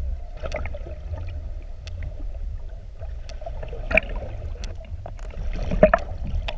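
Underwater sound picked up by a camera held just below the sea surface: a steady low rumble and hum, with a few short splashy knocks and bubble noises, the loudest about four and six seconds in.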